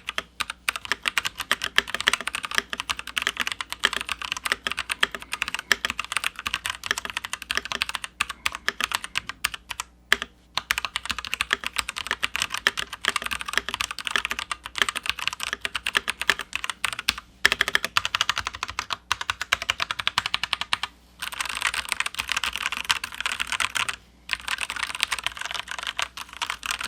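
Fast, continuous typing on an unmodded IROK FE87/104 Pro mechanical keyboard with unlubed brown tactile switches and ABS keycaps, broken by a few short pauses. This is the stock board's typing sound, which the owner judges not great.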